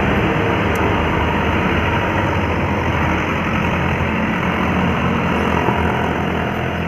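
Heavy vehicle's diesel engine working up a climb as it passes close by, with engine drone and road noise, fading a little near the end.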